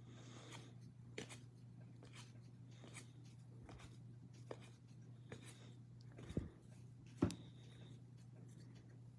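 Baseball trading cards being handled and flipped through: faint scattered clicks and slides of card stock, with two sharper taps about six and seven seconds in, over a steady low hum.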